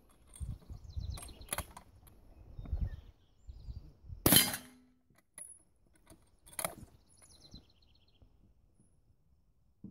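Krag-Jorgensen bolt-action rifle fired, one loud sharp report about four seconds in. It is surrounded by fainter clicks and a softer report a couple of seconds later, and another shot begins right at the end.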